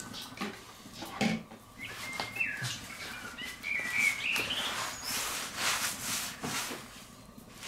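A paper towel rubbing freshly sprayed oil across a hot steel fire plate: rough scraping swishes, loudest past the middle, with a few light knocks. A faint wavering chirp rises in small steps a couple of seconds in.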